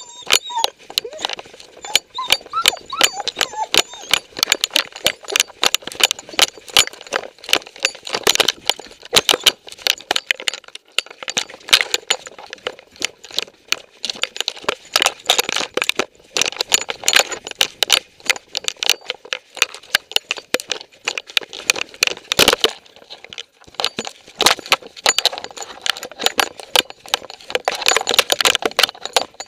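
Rapid, irregular jingling and clicking of metal tags and the camera rig strapped to a moving dog, rattling with each stride.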